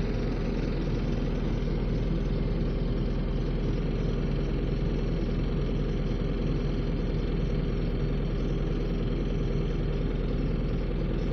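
Vehicle engine idling steadily: a low, even hum that holds the same pitch throughout.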